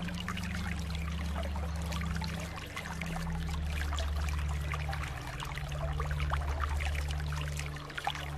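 Water flowing and trickling steadily, full of small splashing droplets, over a low steady hum that shifts in pitch every couple of seconds.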